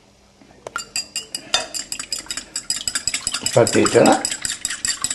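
Fork whisking a raw egg in a glass bowl: a fast, even clatter of metal tines striking the glass, beginning about a second in.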